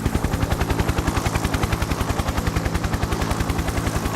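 Helicopter in flight: a fast, even chop of the rotor blades over a steady low engine hum.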